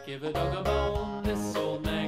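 Cheerful children's background music with a steady beat and plucked notes.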